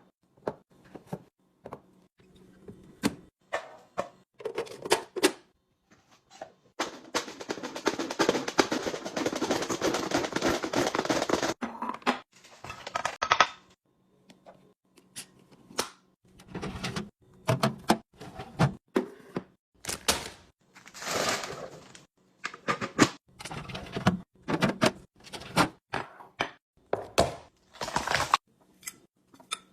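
Food packages and containers being handled and set down during a restock: a string of clicks, taps and thunks, with a steady rush of rustling sound lasting about five seconds a quarter of the way through.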